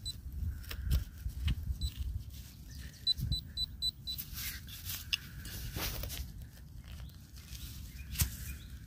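Handheld metal-detecting pinpointer probe beeping as it is pushed into a dug hole: one short high beep at the start, then a quick run of five beeps about three seconds in as it alerts on metal in the soil. Soft scraping and rustling of the probe against dirt and grass runs under it.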